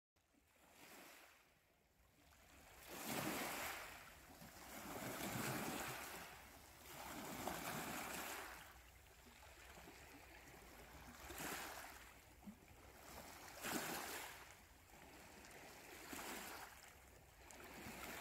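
Faint ocean waves washing in, a noisy surge that swells and fades every two to three seconds.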